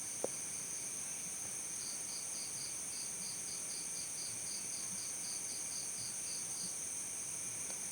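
Crickets chirping: a steady high-pitched trill, with one cricket adding quick, evenly spaced chirps, about four a second, through most of the stretch. A brief click sounds just after the start.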